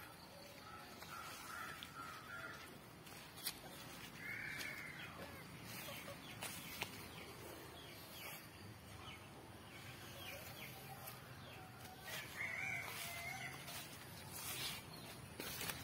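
Native desi chickens calling faintly: a few short, arched calls several seconds apart, over light scattered clicks.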